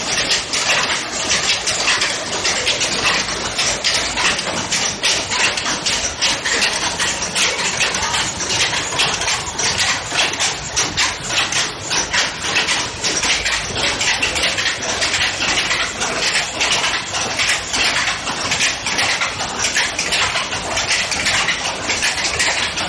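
Jacquard power loom weaving silk brocade, its punched-card design mechanism and shuttle action making a rapid, continuous mechanical clatter.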